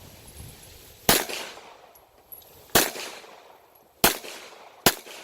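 Four gunshots at an uneven pace, the last two closer together, each ending in a short echo.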